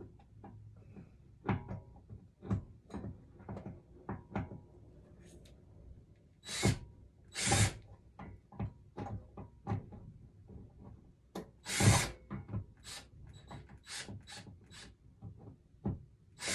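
Scattered knocks and clicks of a metal over-the-door hook rack rattling against a wooden door, with a few short bursts of a cordless drill working at screws that have been painted over and will not come out easily.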